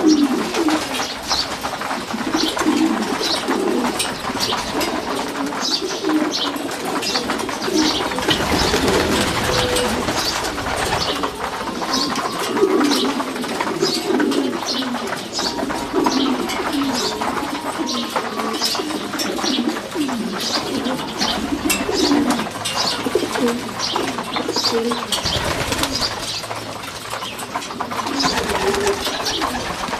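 A flock of racing pigeons cooing continuously: many low coos overlapping, with frequent sharp clicks throughout.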